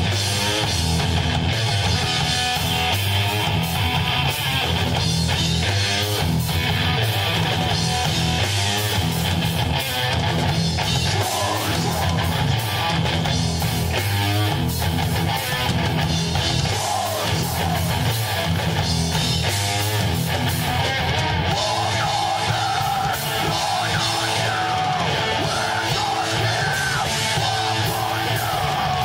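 Live rock band playing a loud, heavy song on electric guitar and drum kit.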